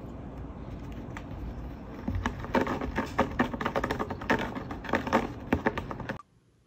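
A cat close by making a run of quick, irregular clicks and taps with its face and mouth against a window frame, starting about two seconds in and cutting off suddenly near the end.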